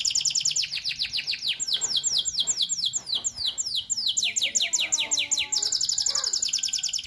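Domestic canary singing a long unbroken song of rapid, repeated downward-sweeping whistled notes. The notes slow in the middle, then quicken again into a fast trill, with a change of phrase near the end.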